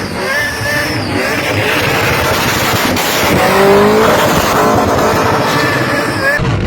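Burnout car's engine held at high revs with the rear tyres spinning and squealing. The sound changes abruptly near the end.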